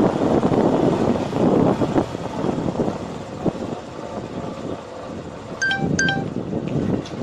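Wind buffeting the microphone on a moving motorcycle, a rough, fluctuating rush. Near the end come two short, high beeps about a third of a second apart.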